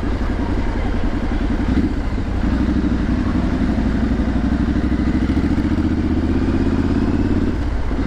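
Triumph Street Scrambler 900's 900cc parallel-twin engine running under way. The note breaks briefly about two seconds in and again near the end, as with gear changes, and otherwise holds steady.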